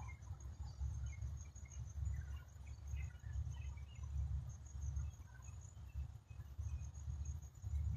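Outdoor ambience: scattered short bird chirps and a faint, steady high insect trill over a louder low, fluttering rumble.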